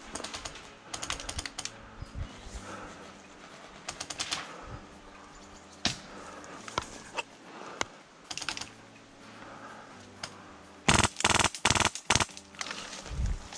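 Airsoft guns firing: short bursts of rapid clicking full-auto fire, with single shots between them. About five loud shots come close together near the end.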